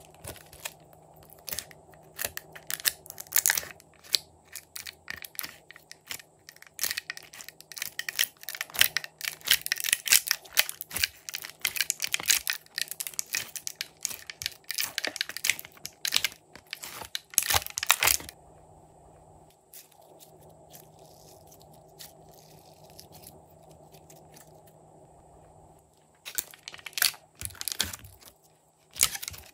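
Glossy slime being pulled and peeled out of a thin clear plastic tray, giving dense runs of sticky crackling and popping, with a quiet pause of several seconds before it starts again near the end.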